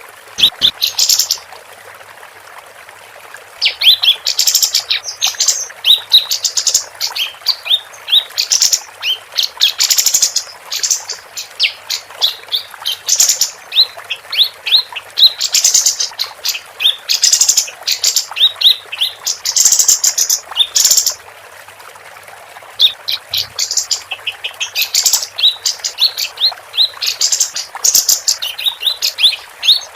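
Female kapas tembak songbird singing rapid bursts of high, sharp chirps and short trills. The song breaks off for about two seconds shortly after the start and again about two-thirds of the way through.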